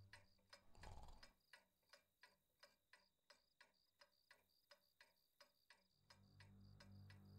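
A clock ticking faintly and evenly, about three ticks a second. A soft rustle comes about a second in, and a low steady drone enters near the end.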